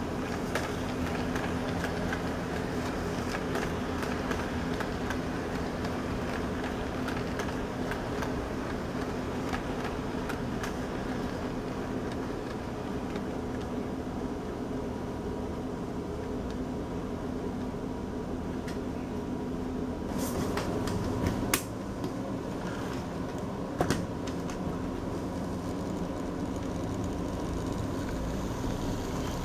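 Model train layout humming steadily, with a few sharp clicks about twenty and twenty-four seconds in.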